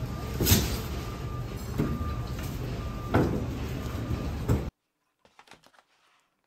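Busy warehouse-store ambience: a steady rumbling hubbub with a few sharp knocks and a faint beep repeating about once a second. About two-thirds of the way in it cuts off suddenly to near silence, with faint crinkles of packaging.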